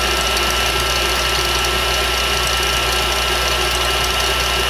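KitchenAid Classic stand mixer running steadily at speed, its wire whisk whipping heavy cream in a stainless steel bowl as the cream thickens toward whipped cream.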